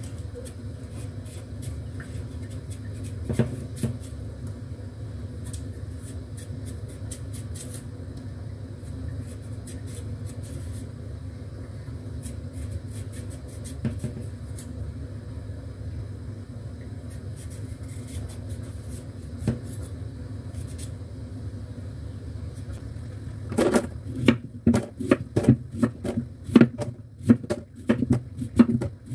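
Light scraping clicks of a blade peeling the skin off a daikon radish, over a steady low hum. About six seconds before the end, a knife starts chopping the radish into cubes on a wooden cutting board: quick repeated knocks, two to three a second, much louder than the peeling.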